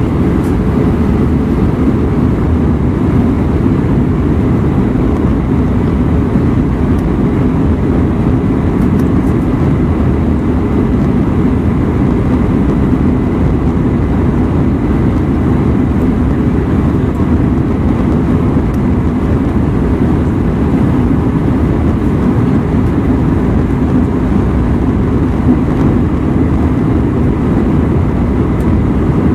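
Steady cabin noise of an Airbus A319-132 in flight, heard from a window seat beside the wing: a loud low rumble of its IAE V2500 turbofan engine and the airflow, with faint steady whines above it.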